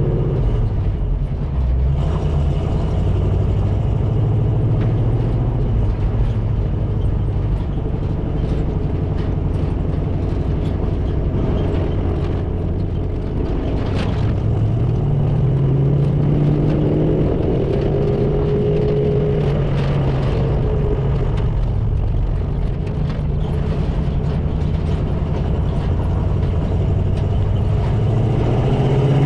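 Chevy K20's 350 small-block V8 running through glasspack mufflers while towing a trailer, the engine note holding steady and then climbing as the truck picks up speed about halfway through and again near the end.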